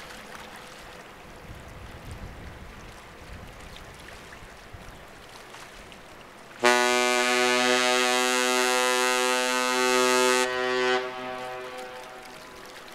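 A cruise ship's typhon horn sounds one long, deep blast of about four seconds, starting suddenly about six and a half seconds in and dying away with an echo, as ships salute each other while passing.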